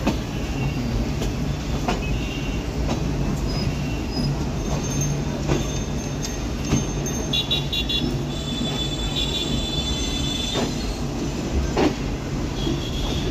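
Bangladesh Railway Chilahati Express CRRC passenger coaches running on broad-gauge track into a junction station, heard from beside the coach. The wheels keep up a steady rumble, with irregular clacks over rail joints and points and short spells of high-pitched wheel squeal.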